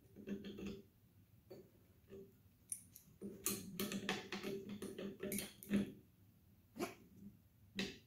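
Small wrench tightening a nut on a train horn's mounting post: a run of metal clicks and scrapes from about three to six seconds in, then single clicks near seven and eight seconds. A low steady tone comes and goes underneath.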